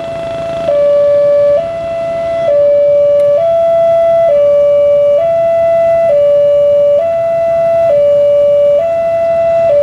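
Railway level-crossing warning siren alternating steadily between two close tones, each held a little under a second, the crossing's signal that a train is approaching.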